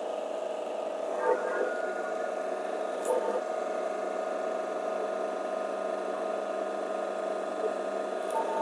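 DF64 coffee grinder motor running steadily with a constant hum while the burr carrier is turned slowly to find the zero point.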